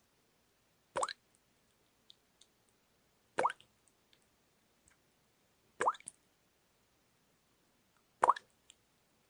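Water dripping, one drop at a time, into water: four short plops evenly spaced about two and a half seconds apart, each with a quick upward rise in pitch, and faint tiny ticks between them.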